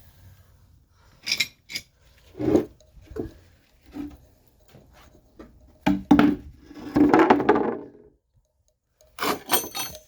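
Metal tools and car parts being handled, clanking and clinking in a string of irregular knocks, with a longer scraping rattle about seven seconds in.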